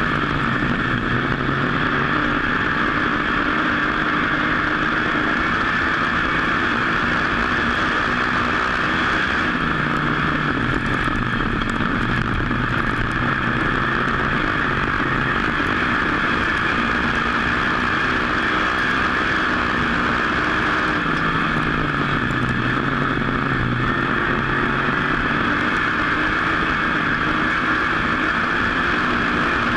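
Dirt-track modified race car's V8 engine under race power, heard from the car itself over loud wind and road noise. The engine note falls and climbs back about every ten seconds, once a lap, as the driver lifts for the turns and gets back on the throttle.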